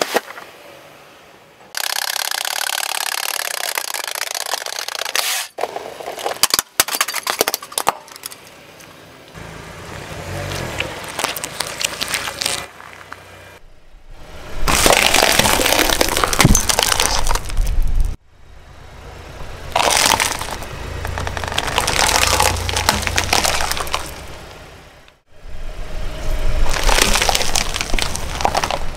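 Car tyre rolling slowly over objects and crushing them, cracking and crunching plastic and candy-coated chocolate buttons in several separate takes. Near the start a liquid-filled container bursts with a spray.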